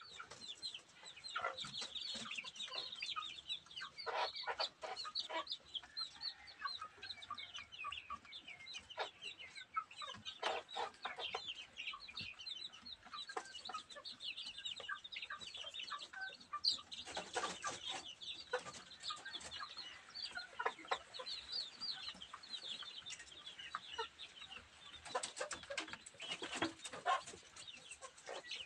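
Backyard chickens in a wire-mesh coop clucking and calling, with a constant stream of short, high, falling chirps and scattered sharp clicks.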